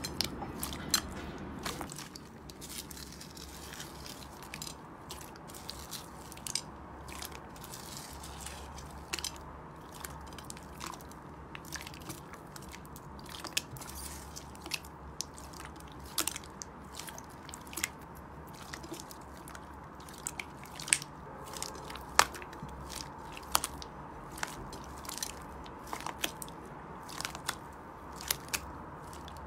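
Hands squeezing and kneading clear glitter slime, with irregular sharp wet clicks and pops as trapped air bursts.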